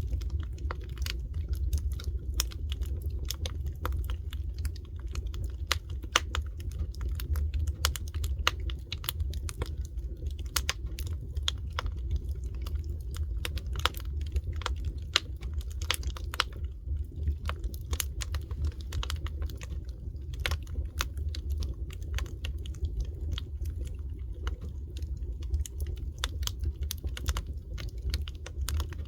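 Wood fire crackling: a dense, irregular run of sharp pops and snaps over a steady low rumble.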